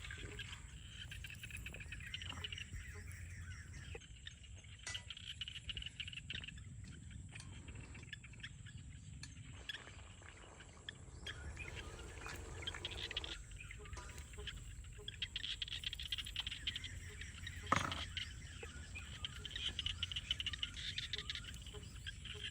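Outdoor field ambience: birds chirping on and off over a steady low rumble, with scattered clicks and taps and one sharper knock about eighteen seconds in.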